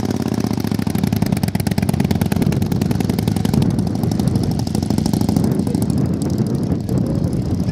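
1937 Morgan three-wheeler's 1100cc V-twin engine accelerating away, its steady even running changing at the start to a rapid, rough pulsing exhaust beat under load as the car drives off.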